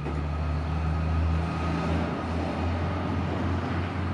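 A motor vehicle running with road noise: a steady low engine hum under an even hiss.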